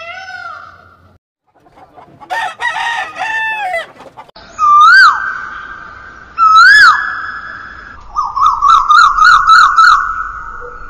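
A series of loud animal calls: a quick cluster of short calls, then two long calls that each rise and then hold a steady pitch, then a fast wavering call near the end.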